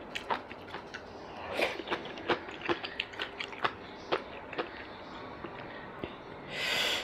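Close-up chewing and eating sounds of a person eating braised tuna, with many small sharp clicks and smacks scattered through. A short breathy rush comes near the end.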